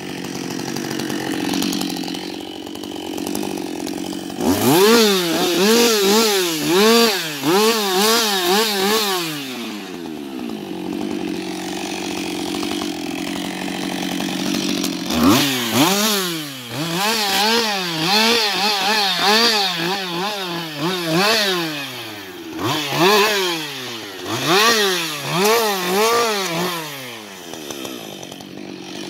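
Husqvarna 560 XP two-stroke chainsaw idling, then revved in quick rising-and-falling bursts about once a second. It idles steadily again for a few seconds in the middle, then goes back to the same bursts.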